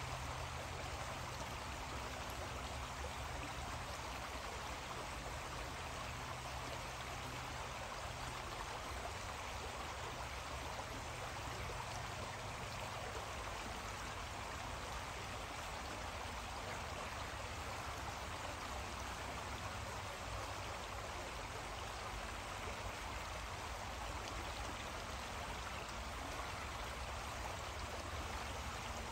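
Creek water flowing, a steady even rushing with a low hum underneath.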